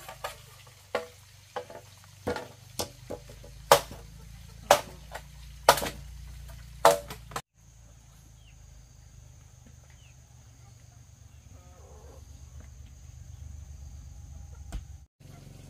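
A run of sharp knocks or taps, growing louder, with the four loudest about a second apart; after an abrupt cut, a faint steady low hum with a thin high whine.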